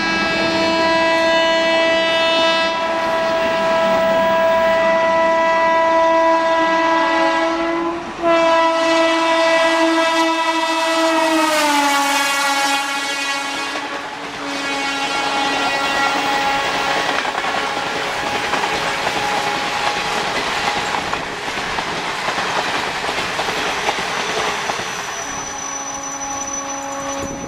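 WAP-4 electric locomotive's horn sounding in two long blasts, the second dropping in pitch about halfway through as the locomotive passes. Then the loud rush and wheel clatter of the express's coaches going by at about 110 km/h.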